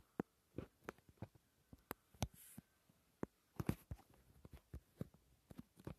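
Faint, irregular clicks and taps from a phone being handled while it films, with fingers on the phone as it zooms in. They come a few a second, with a quick cluster a little past halfway.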